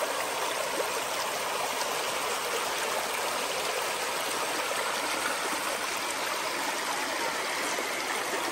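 Shallow stream running fast over rocks: a steady rush and splash of water.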